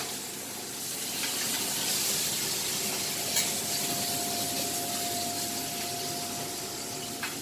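Ribeye steak sizzling in a frying pan of melted butter on a gas hob: a steady frying hiss, with a faint thin steady tone under it in the middle of the stretch.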